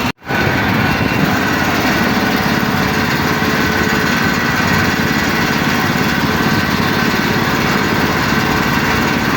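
Air compressor running steadily while a tyre is inflated, a continuous engine-like run with a fast, even pulse. There is a brief dropout just at the start.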